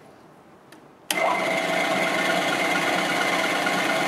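Clausing vertical milling machine's spindle motor switched on about a second in and then running steadily, a steady mechanical whine with several held tones.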